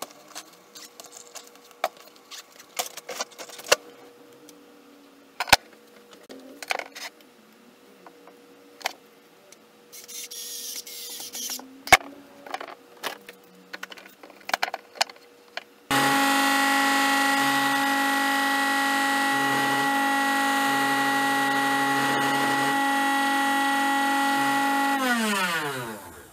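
Knocks and clicks of a small motor being handled and clamped to a bench. About two-thirds of the way in, the small DC motor salvaged from a blender starts and runs with a steady high-pitched whine on its low-speed setting, about 16,000 RPM. Near the end it is switched off and the whine falls in pitch as it spins down.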